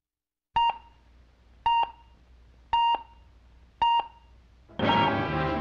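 Four short electronic beeps about a second apart, each the same single pitch, like time-signal pips. Orchestral trailer music comes in near the end.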